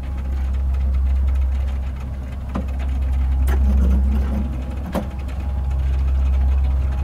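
Steady low mechanical rumble of an elevator motor, a sound effect for a lift platform descending, with a few sharp clicks over it.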